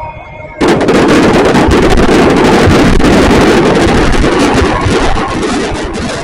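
Loud jet aircraft noise that comes in suddenly about half a second in and overloads the camera's built-in microphone, then eases off near the end.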